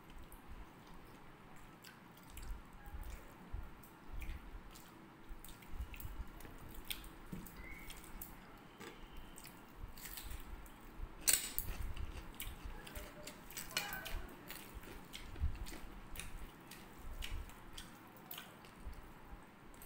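Two people eating a rice meal with their hands: chewing, with the soft sounds of fingers mixing rice and curry on plates and scattered small clicks and taps; the sharpest click comes about eleven seconds in.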